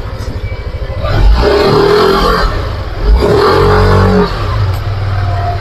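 Yamaha NMAX 155 scooter's single-cylinder engine idling, then revved up twice and let fall back. The freshly serviced CVT makes none of the whine it made on throttle before the repair.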